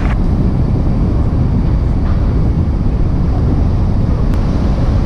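Steady low rumble of wind buffeting the microphone, with a couple of faint ticks about two and four seconds in.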